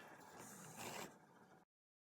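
Near silence, with a faint, brief scraping noise up to about a second in; the sound then cuts out completely.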